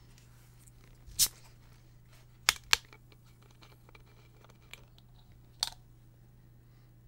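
Plastic soda bottle handled and its screw cap twisted open: a few separate sharp clicks and cracks, one about a second in, a quick pair about two and a half seconds in and one near the end, over a faint steady low hum.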